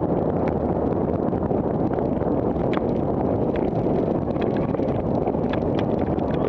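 Wind rushing over the microphone of a camera on a moving bicycle, a steady low rush, with scattered light clicks and rattles from the ride.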